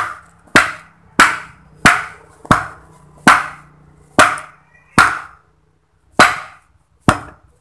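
Finned metal electric-motor housing knocked down repeatedly against a stone block: ten sharp knocks, roughly two-thirds of a second apart, each with a short ring. The knocks drive the copper-wound stator evenly down into the new housing.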